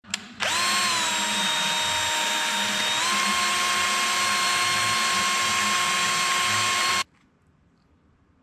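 Cordless drill spinning a metal mixing rod in a cup of epoxy resin: a steady motor whine that starts about half a second in, rises slightly in pitch about three seconds in, and stops abruptly about seven seconds in.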